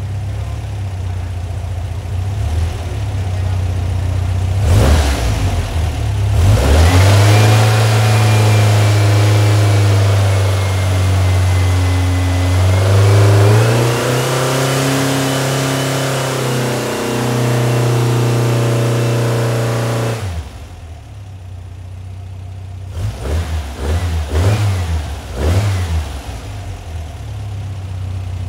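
Freshly built 1914cc VW air-cooled flat-four with dual 44 IDF Weber carburetors idling, then revved up and held at a steady high speed for about fourteen seconds, stepping up once more partway, with a high whine rising and falling with the revs. It drops back to idle and takes a few quick throttle blips near the end.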